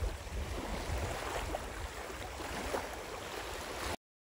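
Small waves lapping and splashing on a lake, with wind rumbling on the microphone; the sound cuts off abruptly near the end.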